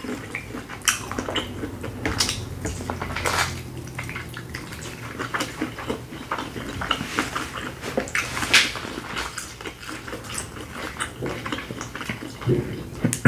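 Eating sounds: chewing and smacking on saucy seafood boil and corn on the cob, with many small wet clicks and crackles and light knocks against glass bowls.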